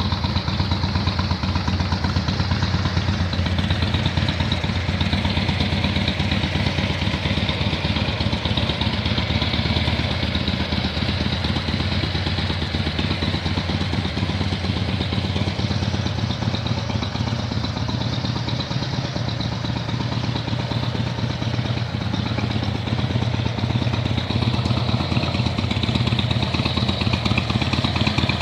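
2007 Harley-Davidson Street Bob's Twin Cam 96 V-twin engine running steadily at idle, with a mechanical clatter over the exhaust pulses.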